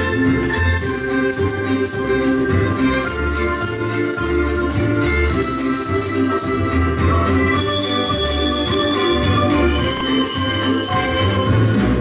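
A handbell ensemble ringing coloured handbells, many bell tones overlapping and ringing on, played over a recorded musical accompaniment with a steady bass line.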